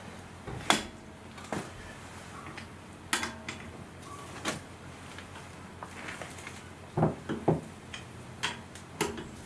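Wheel brace clanking on the wheel nuts of a steel car wheel as they are slackened one by one: about eight separate sharp metal clicks and knocks, the socket being seated on each nut and the brace being pushed round.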